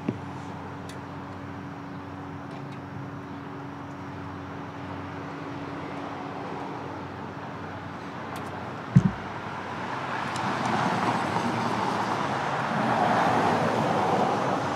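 Street traffic: a steady hum, then a vehicle passing that swells louder over the last few seconds. A single sharp low thump about nine seconds in.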